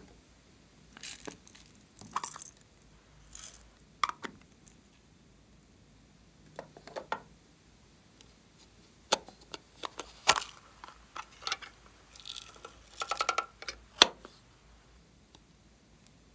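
Hands handling plastic slime containers: scattered short clicks, taps and scrapes, with a quick run of ticks a little before the end.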